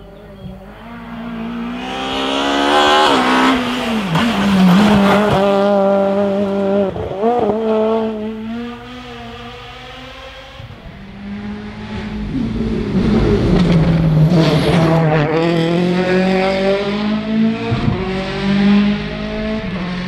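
Rally cars at full throttle passing on a tarmac special stage, one after another: each engine grows loud as it approaches, its pitch dipping and climbing again through gear changes, then fades. A quieter stretch lies between the two passes.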